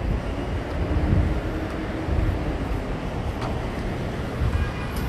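City street traffic noise: a steady rumble and hiss of passing vehicles, with a faint hum about a second in.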